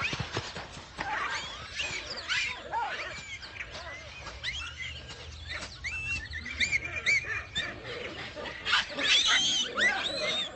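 A dense chorus of many birds calling at once, short high chirps overlapping one another, swelling loudest near the end.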